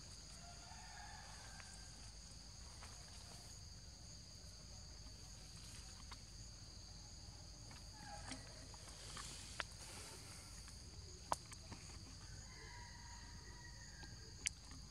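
Faint steady chorus of insects, a high buzz held on two pitches throughout. A few short sharp clicks sound over it, the loudest about eleven seconds in.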